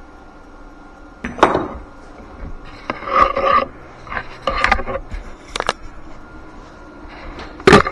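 Metal tools and parts being handled: a run of separate clanks and knocks with some ringing and scraping, the loudest near the end, over a low steady hum.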